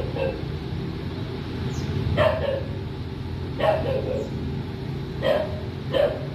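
A dog barking off and on, four short barks about a second or more apart, over a steady low background rumble.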